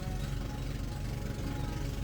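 Boat engine running steadily with a rapid low chugging, with music playing over it.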